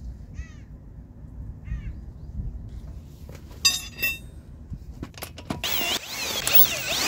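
A few short squeaks and metal clinks, then a cordless impact wrench runs from about five seconds in, its whine wavering in pitch as it tightens a bolt.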